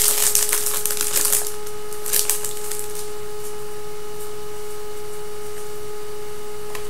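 Rustling of trading card pack wrappers and cards being handled, for about the first second and a half and again briefly a little after two seconds, over a steady high-pitched electrical hum.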